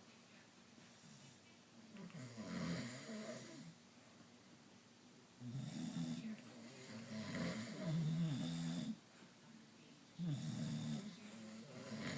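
Loud snoring from a sleeper: three long rattling snores a few seconds apart, the last running past the end.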